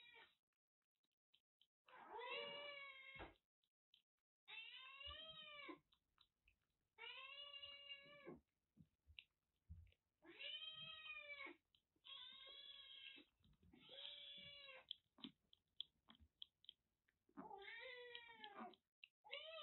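Kitten meowing again and again, about seven calls of around a second each, every one rising then falling in pitch, with faint clicks in between.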